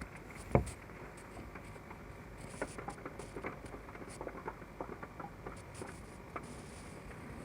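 Raindrops pattering: sparse, irregular taps of drops striking a surface, with one louder knock about half a second in.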